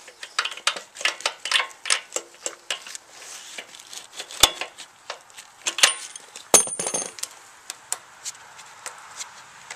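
Light clicks and metallic clinks from hands handling the minibike's metal frame and engine parts. They come quickly at first, then sparser, with two sharper knocks, one about four and a half seconds in and one about six and a half seconds in.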